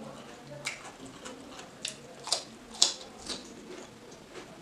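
Close-up crunching of raw cucumber being bitten and chewed: a string of crisp crunches, about two a second, the loudest between two and three seconds in.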